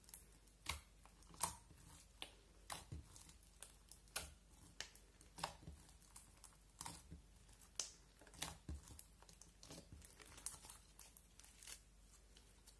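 Clear slime loaded with coloured candy flakes being kneaded, pressed and folded by hand, giving irregular sharp pops and crackles about one or two a second.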